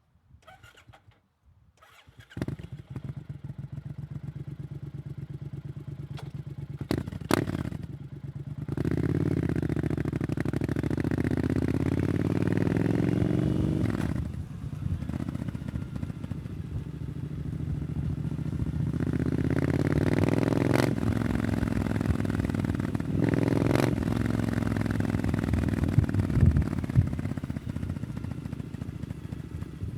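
Triumph Scrambler 900's parallel-twin engine through an aftermarket Arrow exhaust starting about two seconds in, after a few clicks. It runs low for several seconds, then gets louder with engine speed rising and falling several times as the bike is ridden.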